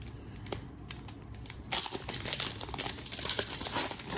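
Wrapper of a football trading-card pack crinkling and tearing as it is opened. It is quiet with a few small ticks at first, then crackles densely from a little under two seconds in.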